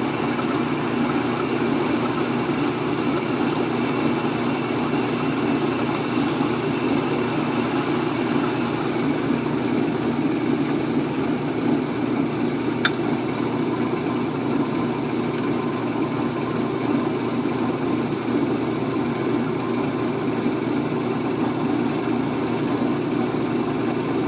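Washing machine in its spin cycle on the delicates setting, running with a steady hum and rumble; the machine is unlevel and vibrates. A hiss in the high range drops away about nine seconds in, and there is a single sharp click near the thirteen-second mark.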